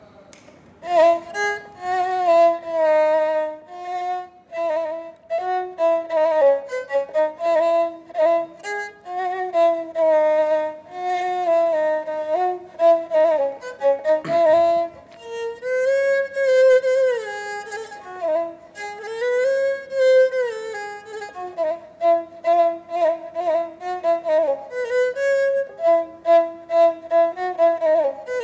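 Egyptian rebab, a bowed spike fiddle with a coconut-shell body, played solo: a bowed melody of short separate notes with sliding notes in the middle.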